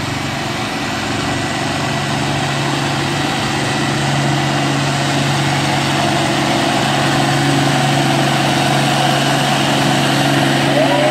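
International Harvester row-crop tractor engine running steadily under load as it pulls a weight-transfer sled, growing gradually louder as it nears.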